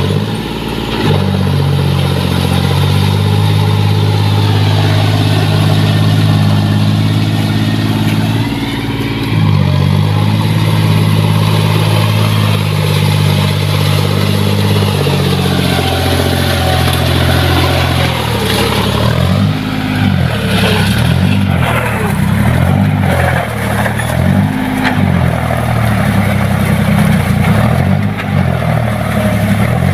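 John Deere tractor's diesel engine running under heavy load as its cage wheels churn through deep paddy-field mud. Past the middle it revs up and down several times, the engine straining to pull the tractor through the mud.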